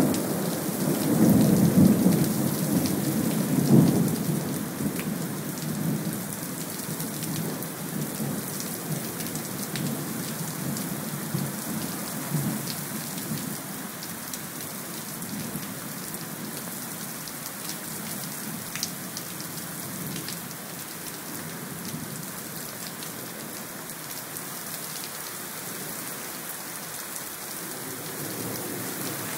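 Heavy downpour with a steady hiss of rain throughout. A roll of thunder rumbles loudly for the first few seconds and fades away over the next several.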